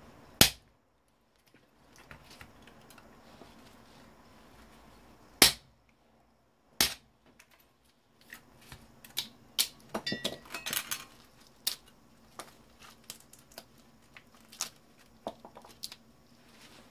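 Hand tools breaking apart a CRT monitor's copper-wound parts: three loud sharp snaps, the last two about a second and a half apart, then a run of lighter clicks and rattling of small pieces with a brief metallic ring.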